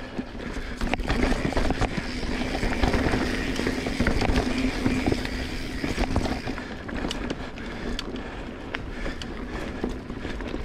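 2022 Transition Sentinel full-suspension mountain bike being ridden along a dirt trail: a steady rushing noise of tyres on the ground, with scattered clicks and knocks from the bike as it goes over bumps.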